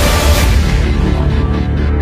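Dramatic soundtrack music. A dense, noisy full-range passage thins out over the first second into a held deep bass note with sustained tones above it.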